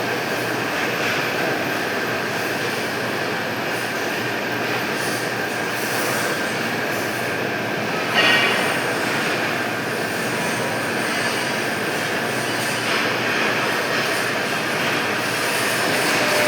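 Metalworking machinery running with a steady, dense metallic noise and a faint high whine, with a short sharp metallic squeal about halfway through.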